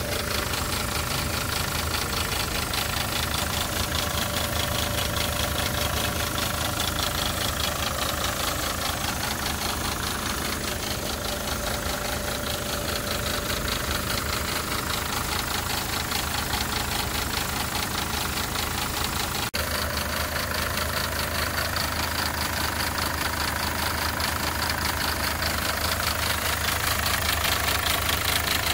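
SsangYong Korando Sports four-cylinder common-rail diesel idling steadily with a rapid, even knocking clatter. The owner calls the noise a banging and wonders whether it comes from the timing chain or the external auto-tensioner.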